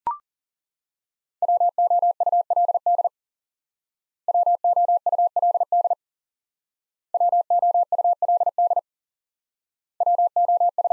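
Morse code tone sending the word "WOULD" at 40 words per minute: rapid on-off beeps of one steady pitch, in four runs about a second and a half each with about a second's gap between, the last starting near the end.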